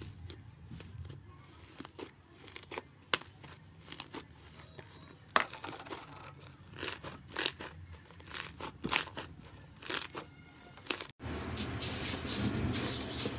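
Thick yellow slime squeezed and poked by hand, giving irregular sharp clicks and pops as air pockets in it burst. About 11 seconds in it switches to a denser, continuous crackle as hands press into pink slime in a tray.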